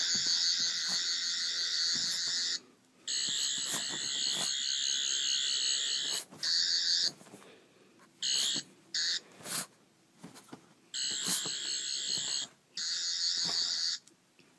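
Toy sonic screwdriver's high electronic warbling whine, switched on and off in about seven bursts, from a fraction of a second to about three seconds long. Between the bursts come short noises from a pug scuffling on the bedding.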